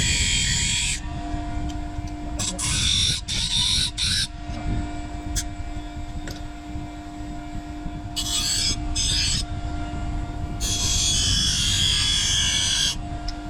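An electric grinder grinds the steel blade. The motor hums steadily under a low rumble, and four times the high grinding hiss rises for a second or two as the metal is pressed against the abrasive.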